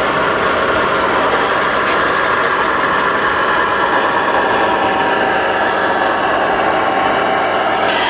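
Steady engine sound from RC models' electronic sound modules, with several held tones drifting slightly in pitch over general hall noise.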